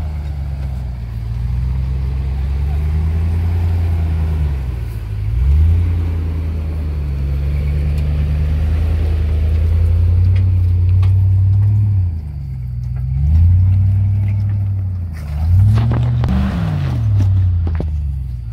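Land Rover Discovery 2's engine working as it crawls over rocks, revving up and easing off several times, its pitch rising and falling.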